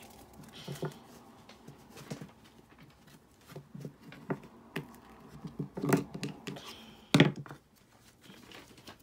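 Hands handling small plastic toy pieces: scattered taps and rustles, a cluster of knocks about six seconds in and a sharp knock about a second later.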